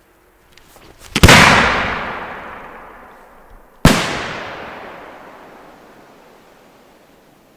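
Two homemade aerial ball shells bursting: two sharp bangs about two and a half seconds apart, each followed by a long fading echo.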